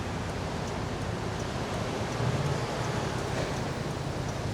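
Steady hiss of rain and wind noise on an action-camera microphone, with a low engine hum of traffic underneath that swells slightly about two seconds in.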